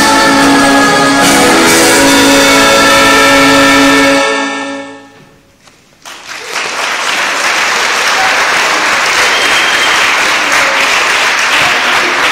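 Live music holds a sustained final chord, then fades out over about a second. After a brief hush, audience applause starts and keeps going.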